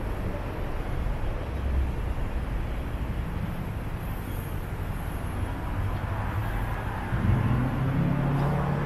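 Steady street traffic noise from passing and queued cars. About seven seconds in, a vehicle engine's low hum comes in and grows louder.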